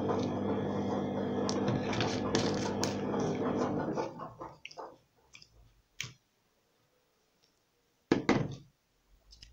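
Plastic laundry-product bottles being handled and moved: small clicks and knocks over a steady hum that dies away about four seconds in, then one louder knock of a bottle set down a little after eight seconds.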